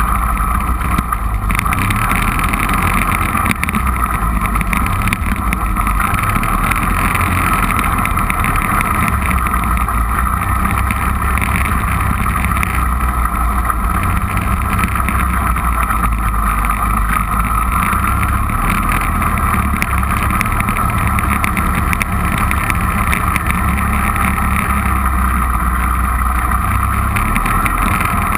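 ATV (four-wheeler) engine running steadily under way along a dirt trail, heard from on board the machine, with a constant drone and rumble.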